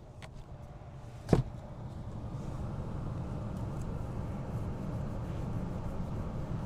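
A single sharp knock about a second in, as work is done to close up a hole in the HVAC system, over a steady low rushing noise that grows a little louder afterwards.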